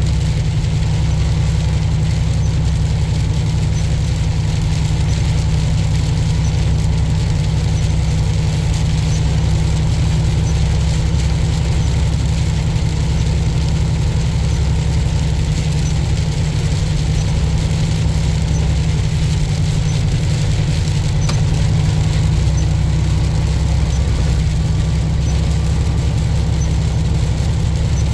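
Tractor-trailer truck driving at steady speed: a constant low engine and road drone with no change in pitch.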